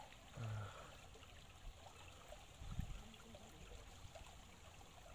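Near-quiet outdoor background with a faint trickle of running water. A short low hum from a person comes about half a second in, and a soft low bump comes near the three-second mark.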